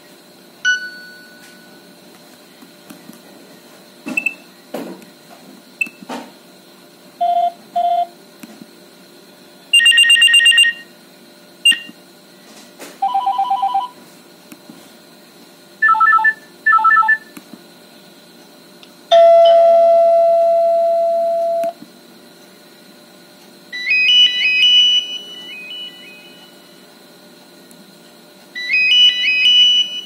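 Nokia 7610 phone speaker playing a run of short ringtone and alert-tone previews one after another: clock and desk-phone style beeps and trills, a single long fading chime, and short melodic figures, each cut off as the next tone is selected, with faint clicks between them.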